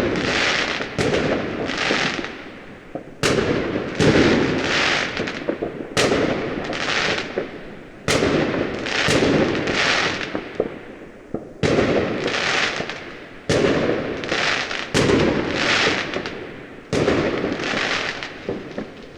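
Fireworks going off: a string of sharp bangs, a new one every second or two, each trailing off into a crackling hiss.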